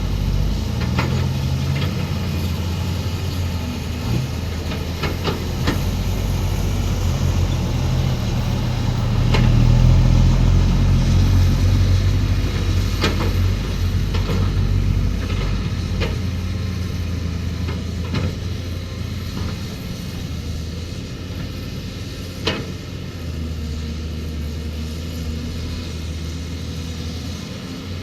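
Excavator's diesel engine running steadily, swelling louder for a few seconds near the middle, with occasional sharp metallic clanks.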